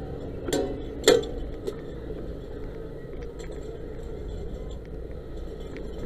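Two sharp metallic clanks about half a second apart, then a lighter click, as fire hose and its metal gear are handled on the back of a fire engine, over the steady low hum of the engine running.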